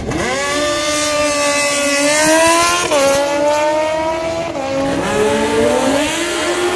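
Drag-racing engine revved up sharply at the starting line and held at high revs, its pitch wavering and stepping up and down several times while the vehicle stays staged.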